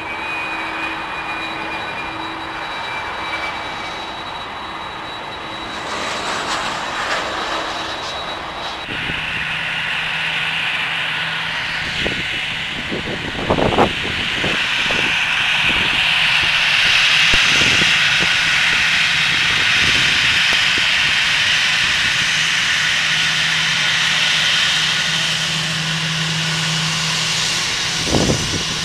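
Jet airliner engines. A distant whine at first, then from about nine seconds in a louder rushing noise with a low steady hum under it. It builds to a peak around the middle and eases off near the end, with a few sharp knocks in between.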